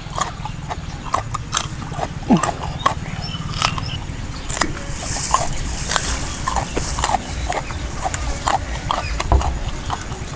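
Close-miked chewing and lip-smacking of a man eating rice by hand, a run of wet mouth clicks at an irregular pace over a low steady rumble.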